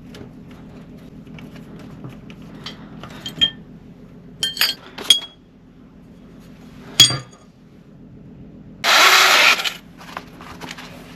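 Metal tools clinking and clicking against each other while being handled, a few sharp ticks at a time, over a faint steady hum. Near the end comes a loud noisy burst lasting under a second.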